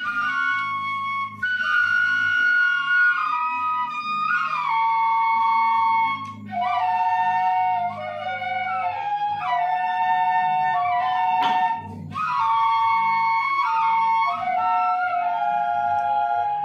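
Seruling emas, traditional bamboo flutes, playing a melody together in parallel harmony over low sustained bass notes. The playing comes in phrases with short breaks between them.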